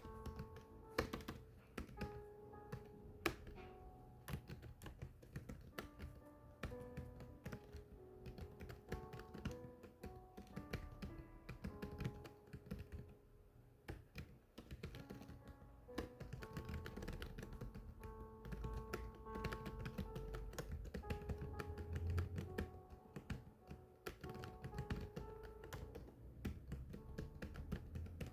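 Continuous typing, many quick irregular key clicks, over background music with held melodic notes.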